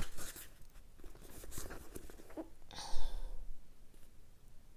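Paperback book pages being leafed through by hand, with one louder paper rustle about three seconds in.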